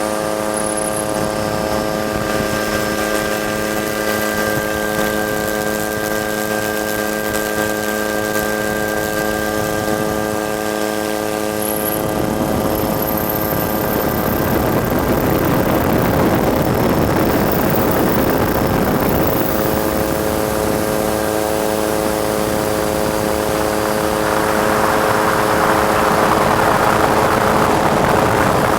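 Helicopter running steadily, a hum of several even tones. From about twelve seconds in, a louder rushing noise joins it and swells again near the end.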